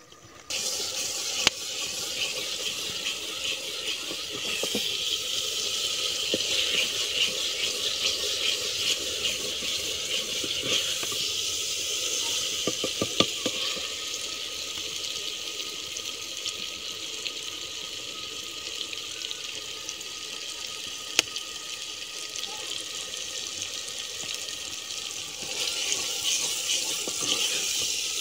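Curry masala sizzling as it fries in a clay pot, with a wooden spatula stirring and scraping through it and a few sharp knocks. The sizzle starts abruptly about half a second in and grows a little louder near the end.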